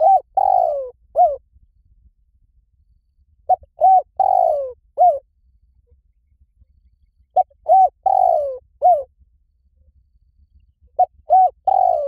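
Spotted dove cooing its song, a phrase of four notes (two short coos, a longer falling coo, then a short closing coo), repeated about every four seconds.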